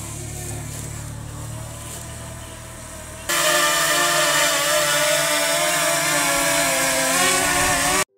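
Small quadcopter drone (DJI Mini 2) lifting off and hovering close overhead: a quieter low hum at first, then about three seconds in a sudden loud, wavering propeller whine of many pitches that cuts off abruptly near the end.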